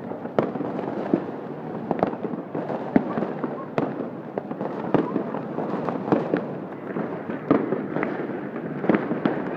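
Fireworks going off in irregular sharp cracks and pops, sometimes two or three a second, over the steady noise of a crowd.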